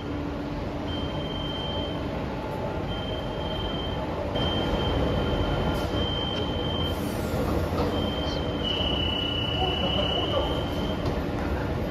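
A Madrid Metro Line 11 train stands at the platform with its doors open, its on-board equipment running. There is a steady hum, with a high whine that starts and stops every second or two.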